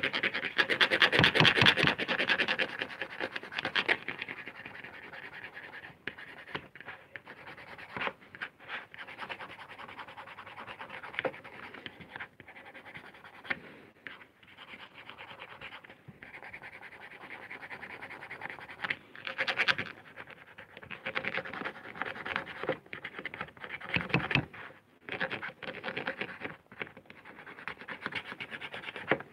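Pencil shading quickly back and forth over a lino block: a continuous dry scratching of many short strokes, loudest in the first few seconds and in spells later on.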